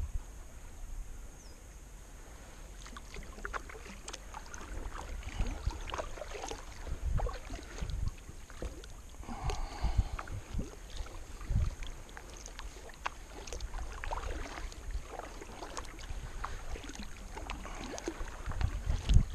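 Kayak paddle strokes: the blades dip and splash into calm water and drip beside the hull in an uneven rhythm, with occasional low rumbles on the microphone.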